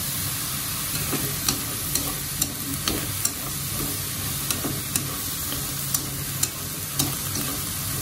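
Green beans and coral mushrooms sizzling in a wok as they are stir-fried with wooden chopsticks. The chopsticks click against the pan irregularly, about a dozen times from about a second in. The sizzle comes from the juice the mushrooms have released into the wok.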